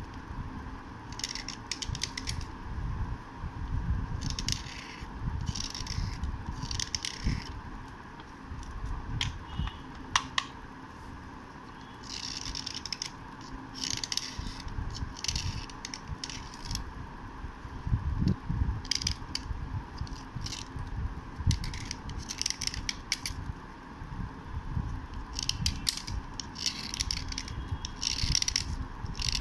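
Metal blade scraping a white slate pencil: runs of short, dry scraping strokes in uneven bursts, with an occasional sharp click.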